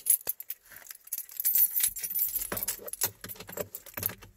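Car keys jangling on their ring while being worked into the ignition of a 2009 Ford Flex, with short metallic jingles and clicks throughout. About two seconds in, a low steady rumble comes in as the V6 engine starts.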